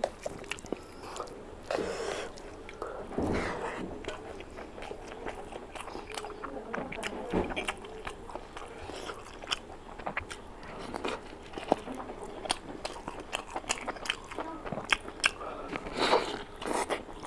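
Wet chewing and lip-smacking of rice and curry eaten by hand, with fingers squishing and mixing rice into the gravy on the plate; many short sharp smacks and clicks throughout.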